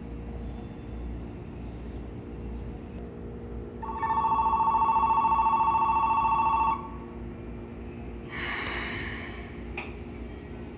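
Station platform departure bell: an electronic ring with a fast trill, loud, for about three seconds. A few seconds later a short burst of hiss ending in a knock as the train's doors close, over the steady hum of the train standing at the platform.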